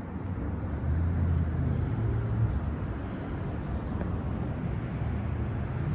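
A car engine running, a steady low hum, with outdoor background noise.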